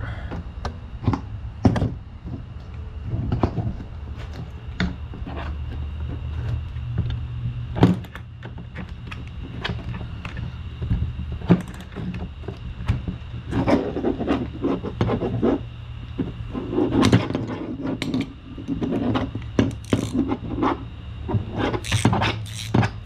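Hands and tools working a small boat fuel-line fitting apart on a bench: scattered clicks, knocks and scraping, busier in the second half, over a steady low hum.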